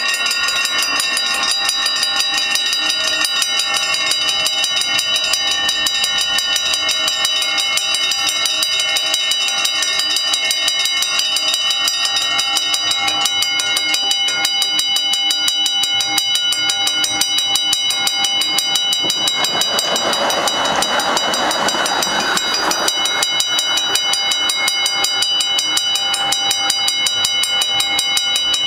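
Dutch level-crossing warning bells ringing in fast, even strokes throughout. From about twenty seconds in, an HTM tram rumbles over the crossing for about three seconds under the bells.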